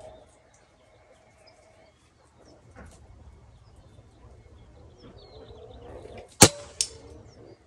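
Air rifle firing a single pellet, a sharp crack about six and a half seconds in. About a third of a second later comes a fainter knock as the pellet clips the metal reset target downrange and resets it.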